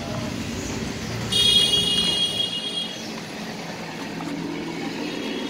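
A high steady tone sounds for about a second and a half, starting just over a second in, over a steady background hum of traffic.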